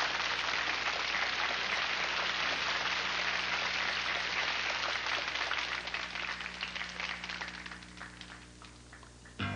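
Audience applauding, the clapping dying away over the last few seconds.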